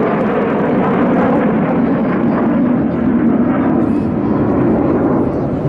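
Loud, steady jet engine noise from Blue Impulse Kawasaki T-4 jet trainers in flight.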